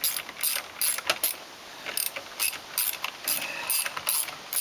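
Hand ratchet wrench clicking in short back-and-forth strokes, about two or three a second, as a car door bolt that turns easily is backed out.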